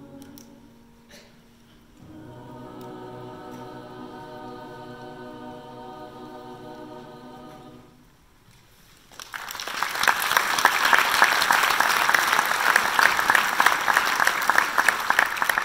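A mixed choir sings the end of a piece, holding a final chord for about six seconds before cutting off together. After a second of quiet, the audience applauds loudly.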